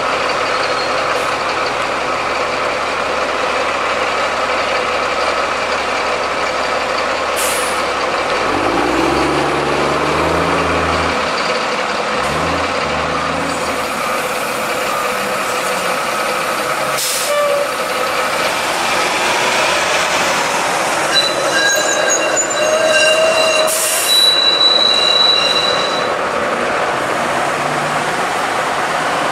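Low-floor Flexity Outlook streetcar rounding the tight loop curve, its steel wheels squealing on the rails in thin high tones that come and go, loudest about three-quarters of the way through. Road traffic runs under it throughout.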